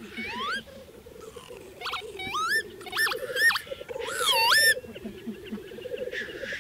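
Male black grouse lekking: a continuous bubbling, cooing chorus of rookooing. Over it come a series of higher rising whistled calls in the middle, and a short hissing call near the end.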